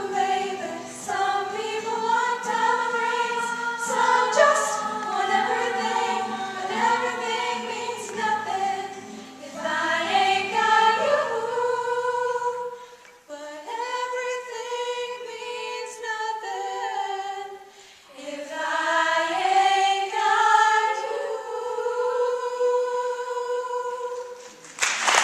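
High school a cappella choir singing in close harmony. About halfway through, the low bass voices drop out and the upper voices carry on to a final held chord that ends just before the close.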